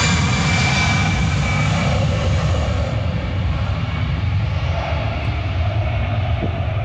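Jet engines of an Allegiant Airbus A320-family airliner at takeoff power during its takeoff roll and rotation: a steady, loud rumble, with a high whine and hiss that fade over the first three seconds as the jet moves away.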